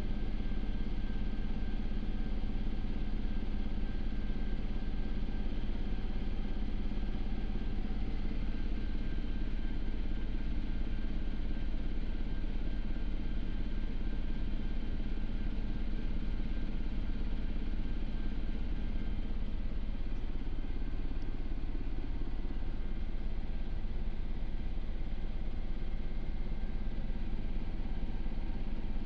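Cockpit noise of a Sikorsky S-92 twin-turbine helicopter in cruise flight: a steady, unchanging drone of rotors, turbines and gearbox, with several steady whining tones over a low hum.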